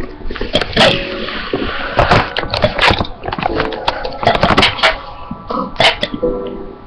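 A person gulping air and straining to burp out the next letters of the alphabet: short throaty burps mixed with sharp swallowing and mouth clicks.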